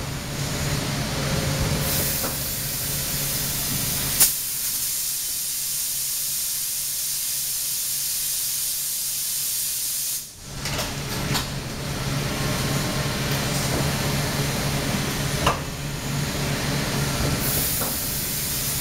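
Kautex continuous extrusion blow molder cycling: a steady high hiss of compressed air runs for several seconds, with a sharp click about four seconds in, and cuts off abruptly around the middle. A low machine hum with a few clanks follows, and the hiss starts again near the end.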